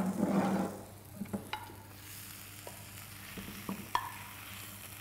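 A metal spoon stirring and scraping Brussels sprouts in a frying pan of browned butter, with a burst of stirring and sizzling in the first second. After that comes a faint sizzle with several sharp clicks of the spoon against the pan.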